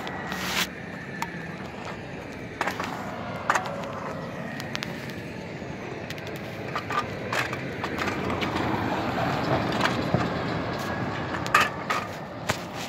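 Road traffic sound from trucks, dropping away as a heavy truck moves off, then a steady lower rumble of the road. Scattered sharp clicks and knocks sound through it.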